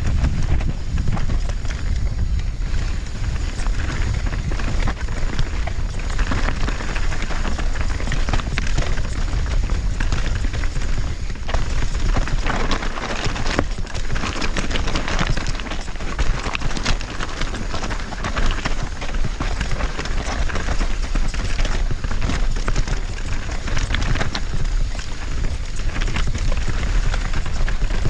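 Mountain bike riding down a rough descent: a steady crackling rush of tyres over dirt and rock, with frequent clattering knocks from the bike and a low rumble.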